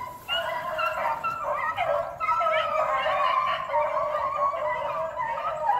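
Pack of rabbit hounds baying as they run a rabbit's track, several dogs giving tongue at once in long, overlapping, wavering cries without a break.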